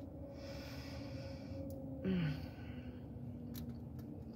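A person chewing a mouthful of steak taco with her mouth closed, breathing out audibly through the nose, then a short falling hum of "mm" about two seconds in.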